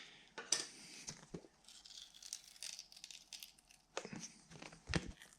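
3D-printed plastic pieces being pried and peeled loose by hand: faint scratchy crackling with a few sharp little ticks about four and five seconds in.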